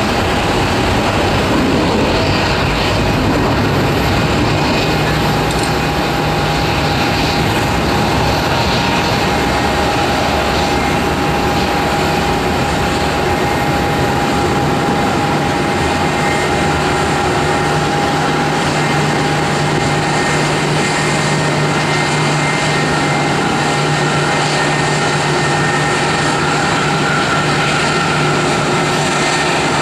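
Airbus A319 jet airliner taxiing, its jet engines running steadily with a constant whine over a broad rush of noise. A higher tone rises slightly near the end.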